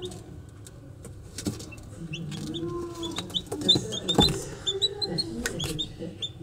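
Domestic chicks peeping: many short, high cheeps in quick succession, with a few sharp knocks around the middle.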